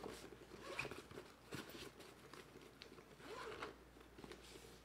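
Zipper on a fabric drone shoulder bag being pulled along its top in about three short, faint strokes.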